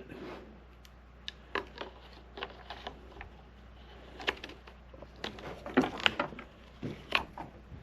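Irregular light clicks and knocks from handling a small chainsaw and its fuel and bar-oil containers, with a cluster of sharper knocks about four to seven seconds in.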